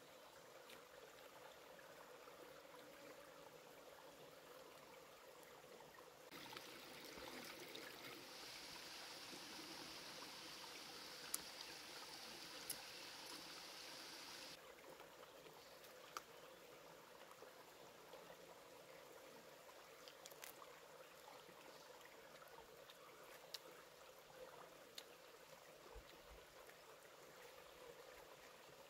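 Faint trickling water with a steady low hiss. About six seconds in, a louder hiss comes in and runs for about eight seconds before dropping back. A few sharp clicks are heard along the way.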